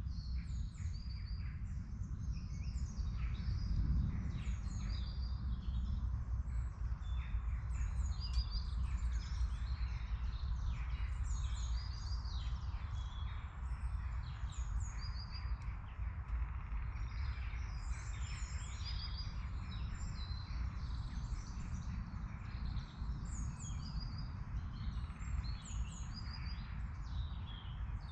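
Woodland songbirds chirping and singing, many short high calls overlapping, over a steady low rumble.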